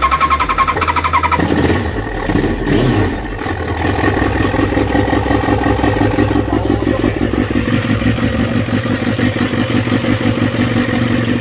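Kawasaki ZX-7R's carburetted inline-four spun on the starter for about a second, then catching and running steadily, with a pitch shift about two to three seconds in. The engine is one the owner finds smoky and rich, with an idle that drops and stalls.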